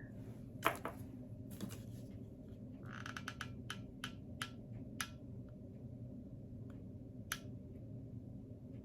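Scattered small clicks and taps of small objects being handled during a repair, about eight in all and bunched in the middle, over a steady low hum.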